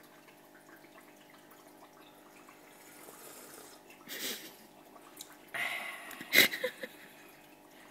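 Faint trickling and dripping of aquarium water over a low steady hum. About four seconds in there is a short breathy noise, and later a brief cluster of louder noises with one sharp click.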